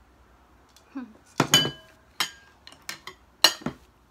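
Ceramic plates and bowls clinking as they are set down and moved on a table, with a metal spoon knocking against a dish. A handful of sharp clinks that ring briefly; the loudest come about a second and a half in and near three and a half seconds.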